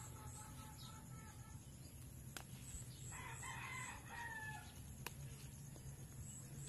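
A rooster crows faintly once, one drawn-out call starting about three seconds in.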